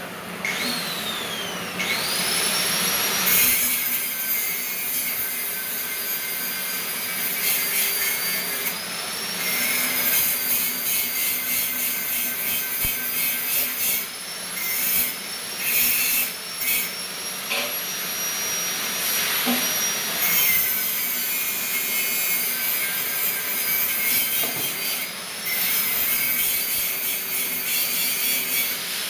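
A high-speed power tool running with a whine and a grinding hiss, spinning up about two seconds in and cutting out briefly several times.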